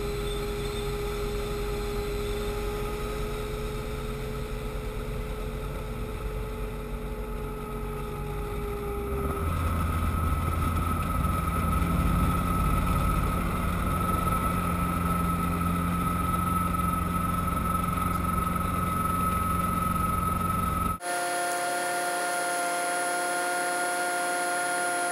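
Helicopter cockpit noise during a practice simulated-engine-failure landing: engine and rotor running with a steady whine. About nine seconds in, the whine jumps higher and the sound grows louder. A few seconds before the end, it switches abruptly to a different set of whines.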